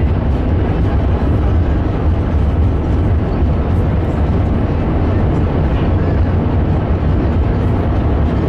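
Steady, loud rumble of an Airbus A380 heard from inside the economy cabin: the Rolls-Royce Trent 900 engines and the airflow over the fuselage, deep and unbroken, with no change in level.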